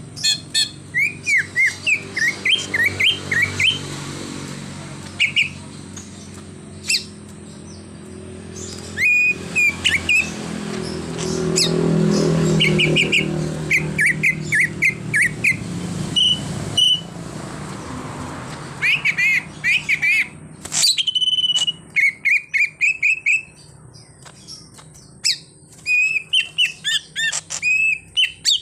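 Green leafbird (cucak ijo) singing in bursts of quick, whistled chirps, its song packed with mimicked phrases. A low droning hum runs underneath and stops abruptly about 21 seconds in.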